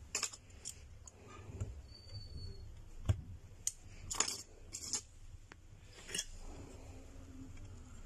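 Light, scattered clicks and taps as a Samsung Galaxy A10 smartphone is handled and knocked against a metal plate on a workbench, with a brief faint high tone about two seconds in.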